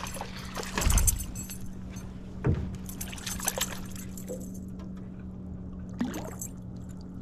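A small northern pike splashing and thrashing at the water's surface as it is reeled in, in several short splashes, the loudest about a second in. A steady low hum runs underneath.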